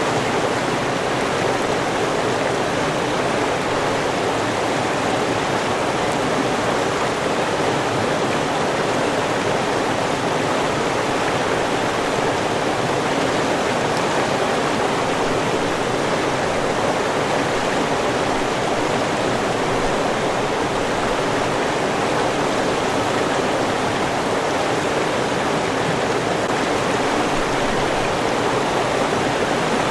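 River water rushing steadily, a constant even flow without breaks or changes.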